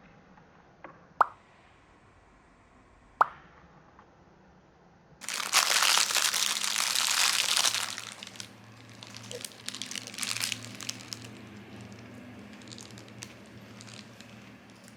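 Objects being handled: a few sharp taps with a brief ring early on, then about two and a half seconds of loud rustling or crinkling, then scattered small clicks and rustles.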